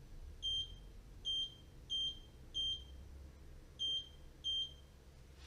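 Six short electronic beeps, each a single high tone, from a handheld belt-tension frequency meter, spaced unevenly about half a second to a second apart. A short click comes right at the end.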